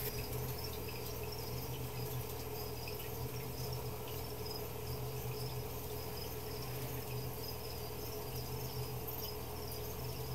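Crickets chirping in a fast, steady trill, over a low electrical hum.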